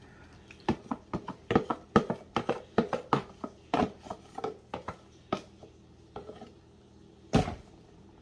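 A kitchen utensil clacking against a mixing bowl in a quick, irregular run of clicks for about five seconds as cornbread batter is stirred, then one louder knock near the end.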